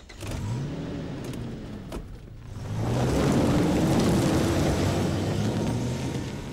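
Toyota pickup truck accelerating away over loose gravel: the engine note rises, dips briefly about two seconds in, then gets louder under a rush of tyres crunching on gravel.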